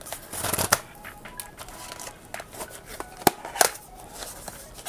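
Small cardboard blind box being handled and opened by hand: a short scrape of card, then a few sharp clicks as the top flap is worked loose, the two loudest close together a little past halfway.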